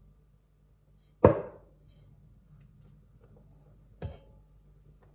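Olive oil bottle knocking on a hard surface: one loud knock about a second in and a fainter one near the end.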